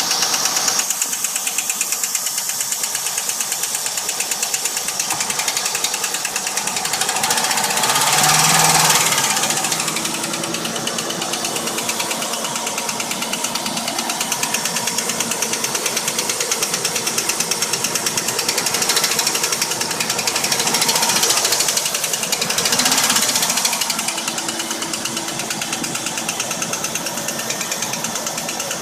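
Holden VX Commodore SS 5.7-litre LS1 V8 running with a rapid, even knocking from the valvetrain, revved up briefly a few times. The knock comes from worn lifters and a worn camshaft.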